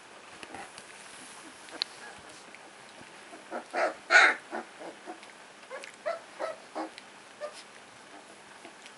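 A litter of young puppies squeaking and yelping in short calls as they play-wrestle, with a loud cluster of yelps about four seconds in and a few scattered squeaks after.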